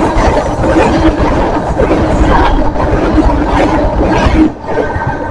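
A passenger train passing close by at speed: a loud, steady rumble of wheels on rail that drops away suddenly about four and a half seconds in.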